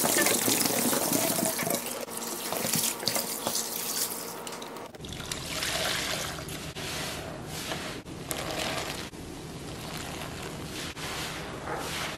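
Streams of coloured liquid pouring and splashing onto sponges in a plastic tub. About five seconds in, the sound changes to soaked sponges being squeezed in soapy water, squelching and dribbling in a few separate squeezes.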